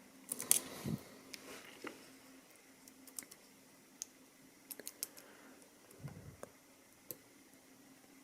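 Lock-picking tools working inside a Mul-T-Lock MT5+ high-security pin-tumbler cylinder: small irregular metallic clicks and light scrapes, thickest in the first second, then scattered.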